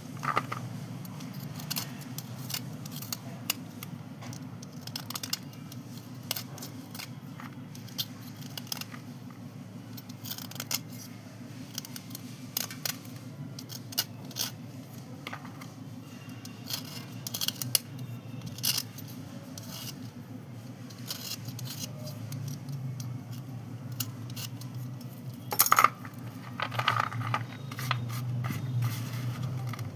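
Crisp clicks and crunches of white slate pencils and chalk pieces being handled and crushed, scattered irregularly, with a louder crack about three quarters of the way through. A steady low hum runs underneath.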